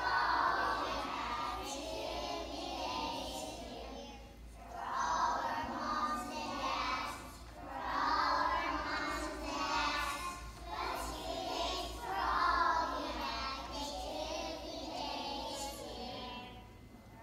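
A group of young children singing together as a choir, phrase by phrase, with short breaks between the lines.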